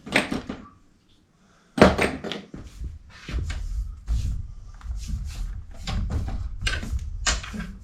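Knocks and clunks of equipment parts being handled and fitted back together, with a short pause followed by the loudest sharp knock about two seconds in, then a string of smaller knocks.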